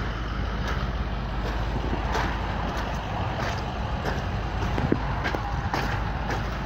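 Footsteps on wet mud and slush, about one and a half steps a second, over a steady low rumble.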